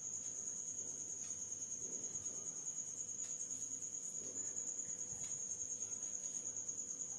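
Quiet, steady high-pitched insect trill, typical of crickets, pulsing rapidly without a break, with a few faint ticks.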